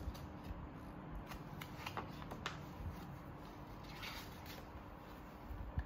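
Paper pages of a picture book being handled and turned, with several soft, brief rustles and flicks.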